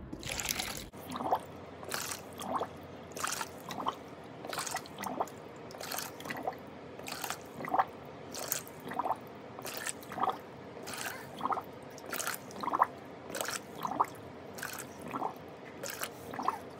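Water scooped with an eggshell and poured into a plastic baby bathtub, shell after shell, making a quick, even run of small splashes and drips about one and a half a second.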